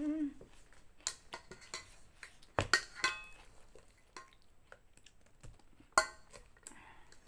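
Aluminium rice pot knocking and clanking as it is handled and scooped from by hand. There are a few sharp metallic knocks with a brief ring, the loudest about three seconds in and again about six seconds in.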